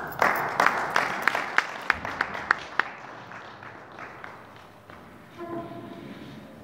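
Audience applauding, with a run of sharp claps at about three a second standing out above it; it dies away after about three seconds.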